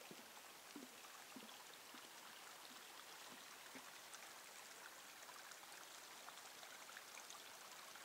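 Faint, steady babble of a small shallow creek trickling over rocks, with a few soft footstep thuds in the first half.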